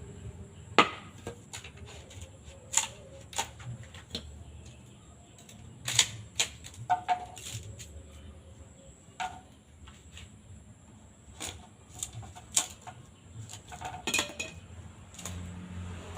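Bamboo being split and worked by hand with a blade, giving irregular sharp knocks and cracks. The loudest ones come about a second in and about six seconds in.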